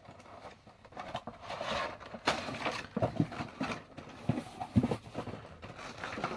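Handling a Funko Pop figure's cardboard box and plastic insert: irregular clicks, knocks and scrapes as the vinyl figure is worked out of its packaging.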